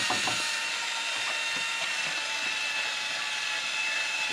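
Electric drill turning a food strainer (applesauce maker) in place of its hand crank, running steadily with a constant whine as cooked apples are forced through the screen.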